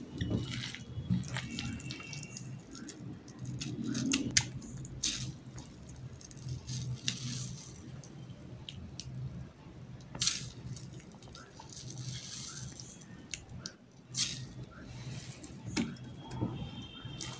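Handfuls of wet, salted grated raw potato squeezed by hand, squishing as the water drawn out by the salt is pressed out and drips. Scattered light clinks and jingles of glass bangles and of hands touching the glass and steel bowls.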